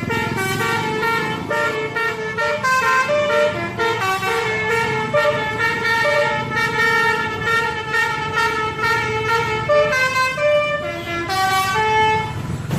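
Bus 'telolet' musical air horn of the Basuri type, playing a rapid melody of short stepped notes with a few held notes.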